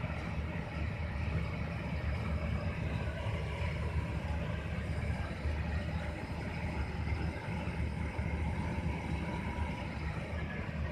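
Steady low rumble of a ship's engines and machinery heard on the bridge.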